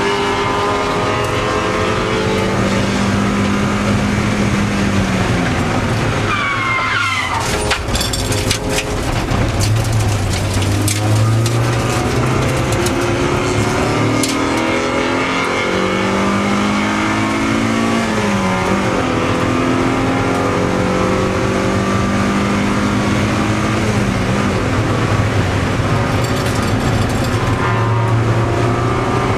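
Race car engine heard from inside the cabin under hard acceleration, its pitch climbing and then dropping at each gear change, several times over. Around the middle there is a brief lift off the throttle with a cluster of knocks and rattles and a short falling squeal, then the engine pulls hard again, over steady wind and tyre noise.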